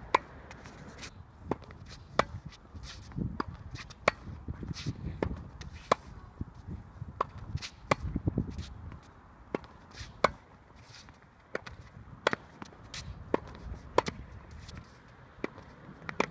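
Tennis balls struck by a racket and bouncing on a hard court: a string of sharp impacts, the loudest about every two seconds, with lighter clicks between them and shoe scuffs on the court surface.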